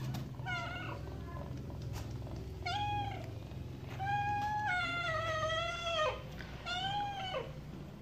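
Cat meowing: four calls, the third drawn out for about two seconds and falling in pitch as it ends.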